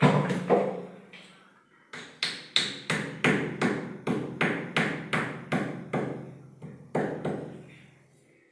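Repeated hammer blows, a few single strikes and then a steady run of about three blows a second, each ringing briefly.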